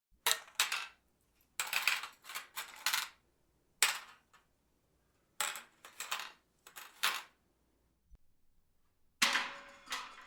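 Metal objects dropped and clattering on a hard surface: several separate drops, each a quick run of sharp hits as the object lands and bounces, with short pauses between them.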